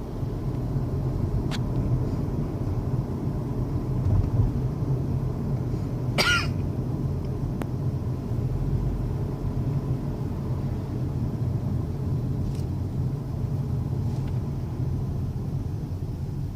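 Steady low road and engine noise inside a moving 2016 Honda Civic's cabin, with a few faint ticks and one brief sharper sound about six seconds in.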